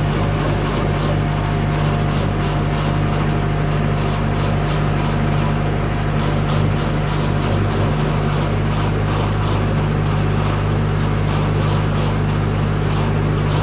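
Farm tractor's diesel engine running steadily under load while it pulls and drives a tow-behind compost windrow turner whose rotor churns through the compost pile. The drone stays level throughout, with a faint rapid rattle above it.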